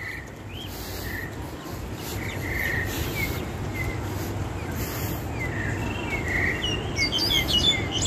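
Starlings and mynas calling in a treetop: scattered short chirps and whistles, quickening into a rapid run of sharp chirps near the end, over a steady low rumble.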